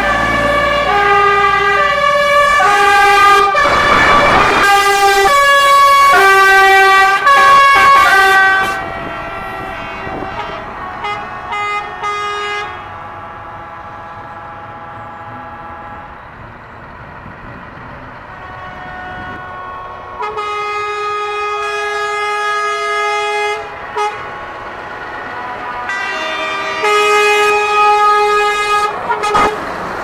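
Truck horns blowing a quick run of changing notes, like a tune, loud for the first nine seconds or so, with a burst of noise about four seconds in. Later come a few fainter notes, a chord held for about three seconds past the midpoint, and another run of changing notes near the end.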